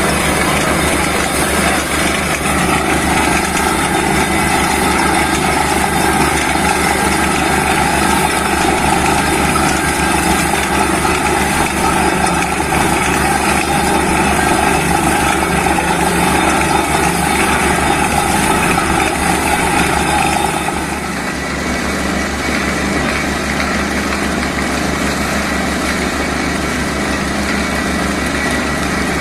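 Borewell drilling rig running steadily, its engine droning under a loud rushing hiss; about 21 seconds in the hiss drops away and the engine runs on more evenly.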